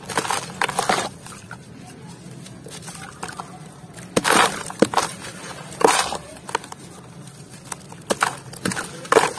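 Gritty dry earth chunks crushed and crumbled by hand, with crumbs and grit falling into wet mud in a plastic tub. The crunches come in irregular bursts, loudest about four and six seconds in.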